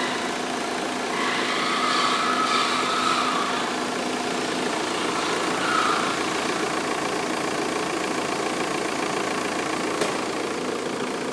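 VW 1.9 TDI AFN four-cylinder turbodiesel running steadily at idle, with one sharp click about ten seconds in.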